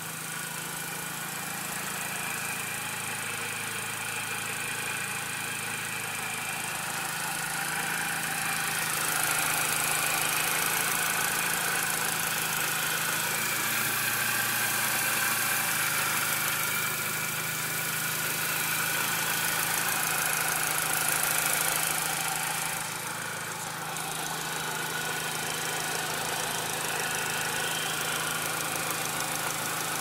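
Mini Cooper engine idling steadily, with a high, even hiss over it that grows louder for a stretch in the middle. The owner suspects a vacuum leak after the throttle body and bypass valve were taken off for cleaning and refitted.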